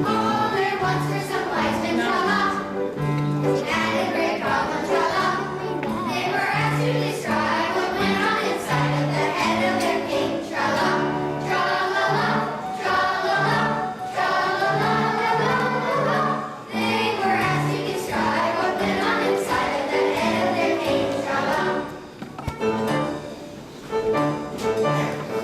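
A song with a choir singing over a steady bass line.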